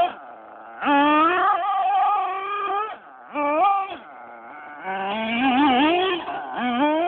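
HPI Trophy 3.5 RC buggy's small 3.5 cc nitro engine revving in about four bursts as it drives, each burst climbing in pitch under throttle and falling back between them.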